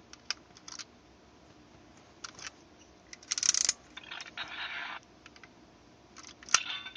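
Clicks and plastic rattling from a Yo-kai Watch toy being handled with a medal: scattered sharp clicks, a short scraping rattle near the middle, and one sharp click near the end.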